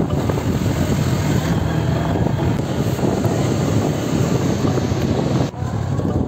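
Motorcycle engine running steadily while riding a gravel road, with rough wind noise over it. There is a brief drop in level about five and a half seconds in.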